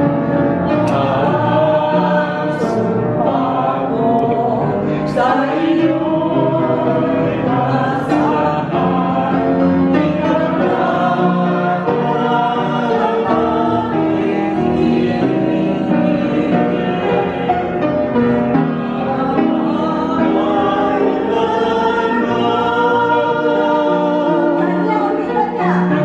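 A group of nuns singing a slow Tagalog song in unison, with piano accompaniment.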